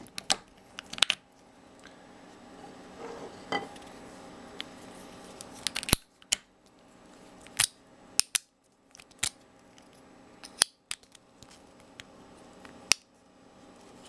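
Sharp, irregular clicks and taps, about a dozen, of small printed-plastic and magnet parts of a 3D-printer arm being handled and fitted together.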